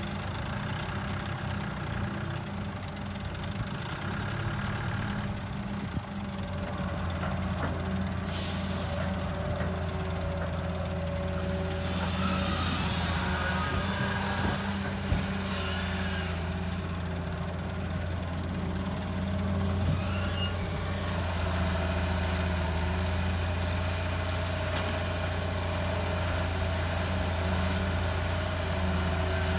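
Hitachi 220 excavator's diesel engine working steadily under load as it loads a dump truck, with a brief sharp hiss about eight seconds in. Around twelve to sixteen seconds in there is a rough rushing noise with a knock as the bucket dumps sand into the truck bed.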